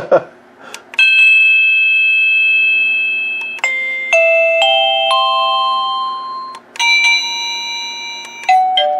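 SadoTech CXRi wireless doorbell chime receiver playing one of its electronic chime melodies at its loudest volume setting: a string of clear, bell-like notes, each ringing on and fading as the next one sounds, starting about a second in.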